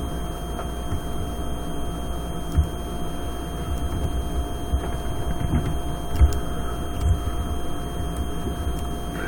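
Small soft clicks and taps of hands working a laptop display cable connector loose from the screen, over a steady low background rumble with a faint steady whine.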